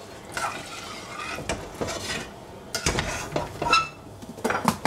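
Metal spoon stirring raw jasmine and sticky rice in water in a stainless steel saucepan, scraping the grains along the pot, with several sharp clinks of spoon on pot in the second half.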